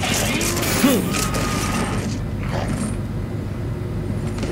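Creaking and scraping from a TV drama's soundtrack, with a brief sharp knock just under a second in.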